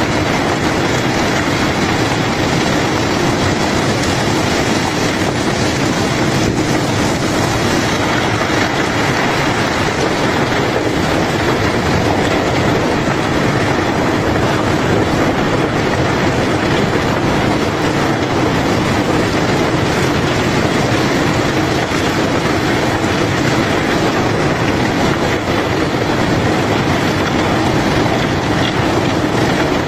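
Gravel-unloading machinery running continuously: a steady, loud mechanical rumble and rattle with no breaks or separate impacts.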